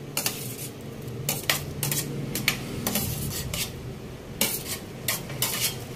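Metal tray clinking and scraping against the rim of a large aluminium wok as chopped banana is slid off it into the coconut milk: an uneven run of short clinks and scrapes.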